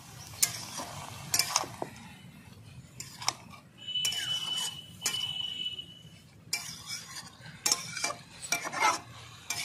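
Metal spatula scraping and clinking against a steel kadai, stir-frying spinach and vegetables, with a light sizzle. A thin high whine sounds for about two seconds near the middle.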